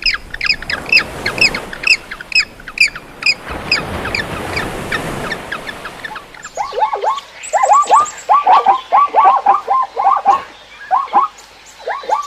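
Poultry calling: first a run of short, high chirps repeated about three times a second. About halfway through, a dense chorus of lower, rapid calls from several birds at once takes over.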